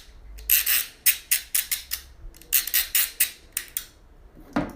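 Ratchet cable cutter being worked by hand, its blade and ratchet clicking forward in two quick runs of short metallic rasping strokes, about five a second. A single knock comes near the end.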